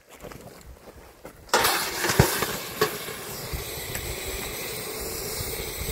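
A scoop of molten lava is quenched in water about a second and a half in: a sudden loud hiss of steam that settles into a steady hiss. Two sharp knocks come soon after it starts.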